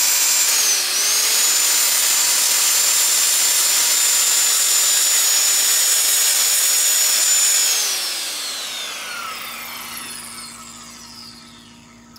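Cordless circular saw running at full speed as it cuts a painted wooden board, with a steady high whine that dips briefly about a second in. Near the end it is released and the blade winds down with a falling whine over several seconds.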